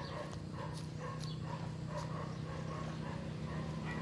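A steady low motor hum, with short high calls repeating over it.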